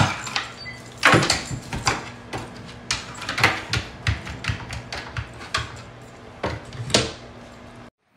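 Irregular wooden knocks and clacks from a hinged flap and box-seat being handled as a dog climbs in, over a low steady hum. The sounds cut off suddenly near the end.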